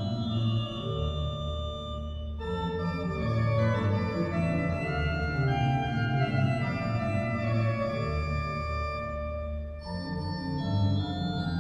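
Organ music playing sustained chords that change every second or so.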